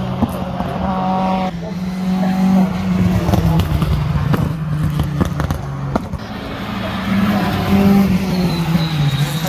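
Rally cars going past one after another at speed, engines revving up and down through gear changes, loudest about three seconds in and again about eight seconds in.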